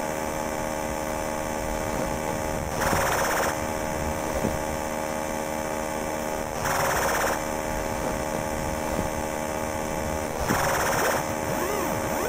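A steady buzzing electronic drone of many held tones, broken three times by a short burst of hiss about every four seconds, with arching up-and-down pitch sweeps coming in near the end.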